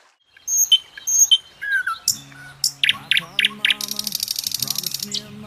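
Birds chirping, with a fast high trill near the middle. Background music with low held notes comes in about two seconds in.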